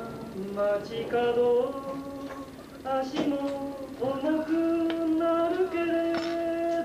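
A voice singing a slow melody, ending on one long held note from about four seconds in, with a few faint clicks.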